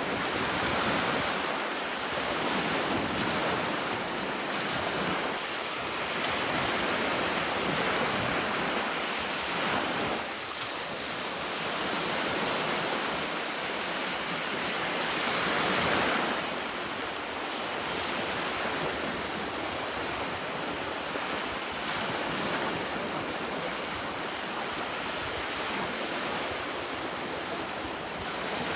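Sea waves washing onto a shore in a continuous wash of surf, swelling and easing every few seconds, the biggest surge a little before the middle.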